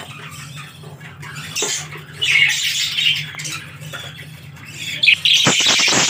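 Budgerigars in a breeding colony squawking and chattering, louder near the end, over a low steady hum. A few sharp clicks come about five and a half seconds in.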